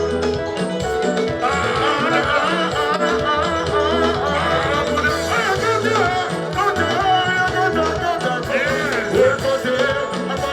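Congolese rumba (soukous) band music playing at a steady level, with a singing voice over lead guitar and a driving bass line.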